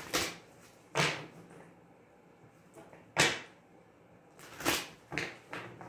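A tarot deck being shuffled by hand, giving about six short, sharp card swishes and slaps at irregular intervals.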